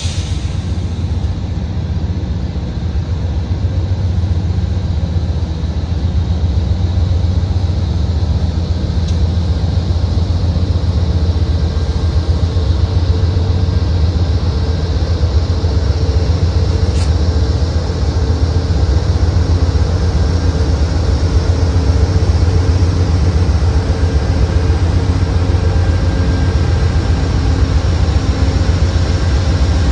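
Amtrak diesel locomotives, Siemens ALC42 Chargers followed by a GE P42, running as they roll slowly past at low speed: a loud, steady, low diesel drone, with a higher steady tone joining in about a third of the way through.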